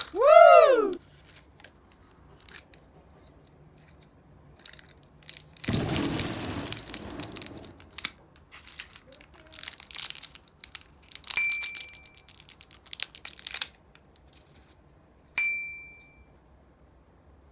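Plastic and foil candy wrappers crinkling and rustling, with small handling clicks, as a plastic toy capsule is unpacked. A short, loud rising-and-falling whistle-like glide comes right at the start, and two brief bright dings ring out later.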